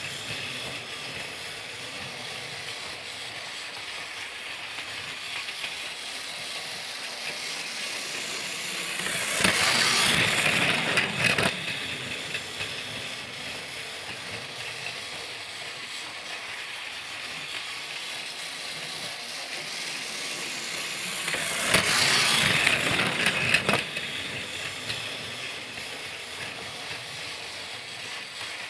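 Motorised Thomas the Tank Engine toy train running, a steady small-motor whir and rattle that swells louder twice, about twelve seconds apart, as if passing close by on its track.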